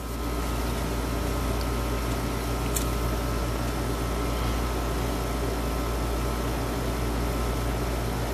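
Steady low electrical hum with an even hiss and a faint thin whine, broken once by a small click about three seconds in.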